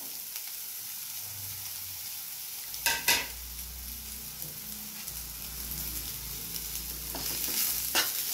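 Sliced bitter gourd sizzling in hot coconut oil in a metal frying pan, a steady hiss, with two sharp knocks about three seconds in. Near the end a metal spoon scrapes and clicks against the pan as the pieces are stirred.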